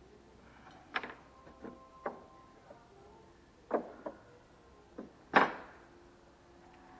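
Several sharp knocks and taps on a wooden bench frame, each ringing briefly, the loudest about five seconds in.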